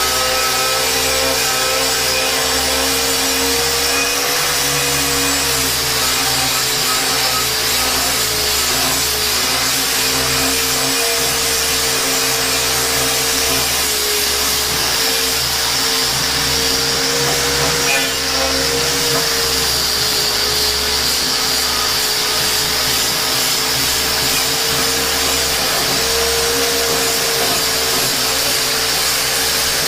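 Handheld angle grinder running continuously against a rusted steel plate, grinding the rust off: a steady motor whine that wavers a little with the pressure, over a constant hiss of abrasive on metal.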